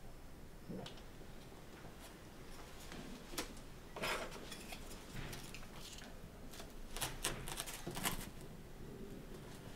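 Paper and bamboo of a hand-made uchiwa fan rustling and scraping under a craftsman's hands as he works on it, in a few short bursts with light clicks, the loudest about four seconds in and again around seven to eight seconds in.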